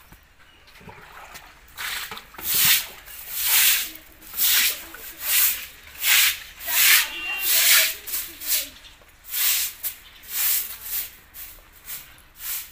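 Stiff-bristled bundle broom sweeping a wet concrete floor in regular swishing strokes, about one a second.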